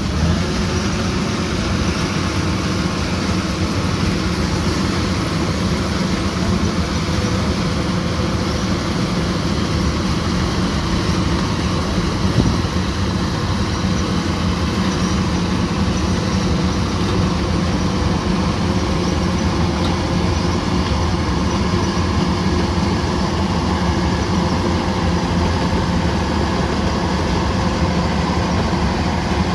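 Kubota combine harvester running steadily under load: its engine and threshing machinery make a loud, constant drone that does not change.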